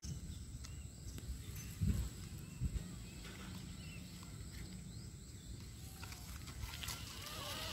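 Quiet outdoor street ambience: a low rumble of wind on the microphone, two dull thumps about two seconds in, and faint short chirps from birds.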